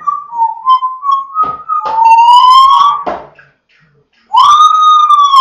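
Congo African grey parrot whistling: a run of short stepped notes, then two long whistles, the second one arching up and falling away near the end.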